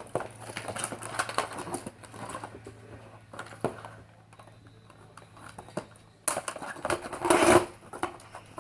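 Toy blaster packaging being handled and unpacked: crackling, rustling and small clicks and taps, with a louder stretch of rustling from about six to seven and a half seconds in.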